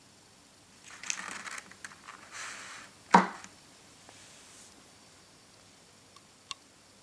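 Thin clear plastic blister tray crinkling and rattling as a chocolate lollipop is handled and set into it, then one sharp plastic click about three seconds in. Two faint ticks near the end.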